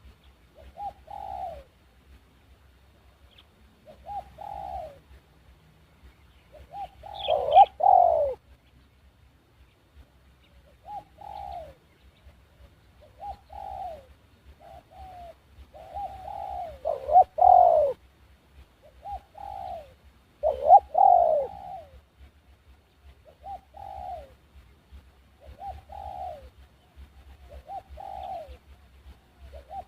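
Doves cooing over and over, short falling coos every second or two, with louder, fuller calls about eight, seventeen and twenty-one seconds in.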